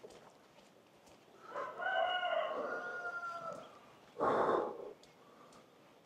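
A rooster crows once, a long call of about two seconds that sags slightly in pitch at the end. About four seconds in comes a short, louder burst of noise.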